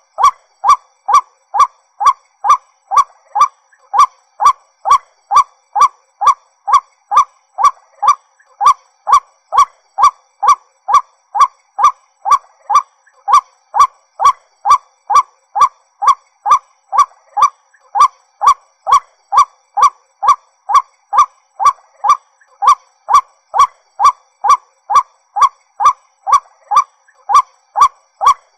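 White-breasted waterhen calling: a loud, monotonous series of identical short calls, about two to three a second, broken by two brief pauses.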